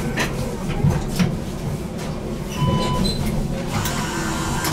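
BN GTL8 tram running along its track, a steady low rumble broken by several sharp clicks and knocks, with a couple of short beeps near the middle.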